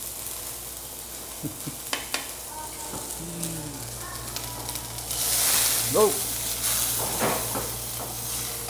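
Chicken frying in a little oil in a cast iron skillet, sizzling and spitting because the chicken is still wet, with a few light utensil clicks early on. The sizzle swells louder about five seconds in as the pieces are turned.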